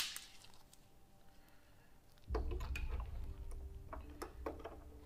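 AA batteries being loaded into a plastic toy's battery compartment. A sharp click comes at the start, then after a pause about two seconds of low rumbling handling noise with small plastic clicks and knocks.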